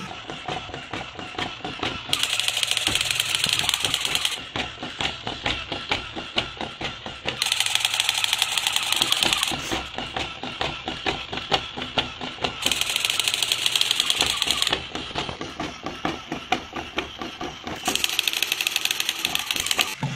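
Battery-operated crawling Spider-Man toy running: its small geared motor clicks and clatters rapidly as the limbs crawl. Four times, each for about two seconds, the toy rifle plays a loud electronic machine-gun firing sound.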